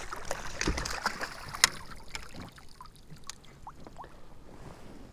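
Water splashing and sloshing beside a kayak, with knocks and clicks, as a bass is brought in and netted. The sounds are busiest in the first two and a half seconds, with one sharp click, then thin out to a few quiet handling clicks.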